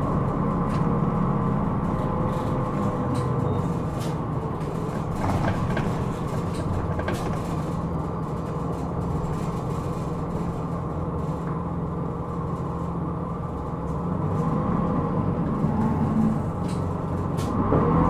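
Hino Rainbow II bus's diesel engine running, heard from inside the passenger cabin, with scattered clicks and rattles; the engine grows louder over the last few seconds as it pulls harder.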